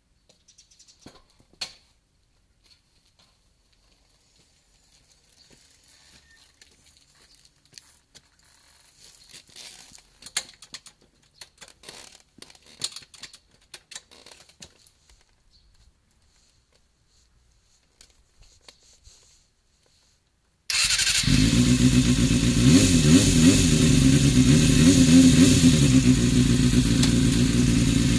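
Faint clicks and handling noises, then about twenty seconds in the Kawasaki Balius's 250 cc inline-four cuts in abruptly and runs loudly at idle, its pitch wavering a little. It breathes through an aftermarket muffler with a lower note than the stock one.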